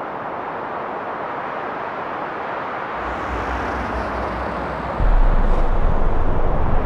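Cinematic soundtrack bed: a steady, wind-like wash of noise, joined about three seconds in by a deep bass rumble that jumps louder about five seconds in.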